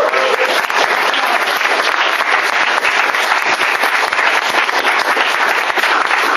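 A crowd of people clapping, a steady sustained round of applause; a voice calling out trails off in the first half second.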